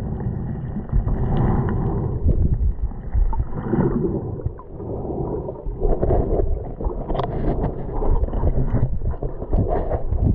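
Muffled underwater noise around a submerged camera: water sloshing and churning against it in irregular surges as it moves through the lake, with a few sharp knocks.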